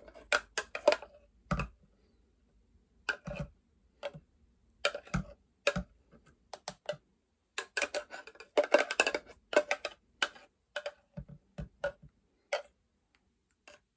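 A metal spoon scraping and knocking inside a plastic blender jar as thick smoothie is scooped out: irregular clicks and scrapes, coming thickest about eight to ten seconds in.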